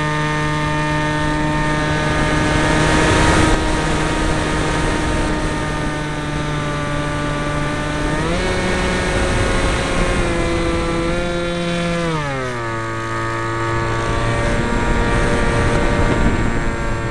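Depron foam F-22 model plane's electric motor whining steadily, heard from its onboard camera over air rushing past, with a surge of wind rush about three seconds in. The pitch rises slightly about eight seconds in, then drops sharply around twelve seconds in as the throttle is eased back.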